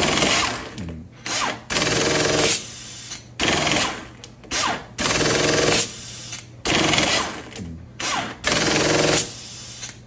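Pneumatic oil pulse tool firing into a torque tester in repeated bursts of about a second, each a fast hammering rattle, with short pauses between trigger pulls as its output is tested after reassembly.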